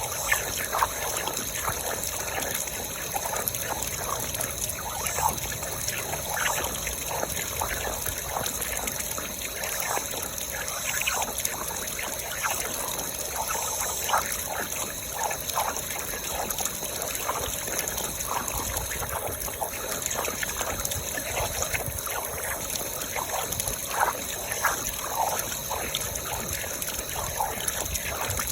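Water trickling and dribbling through a broken valve, with many small irregular plops over a steady high hiss.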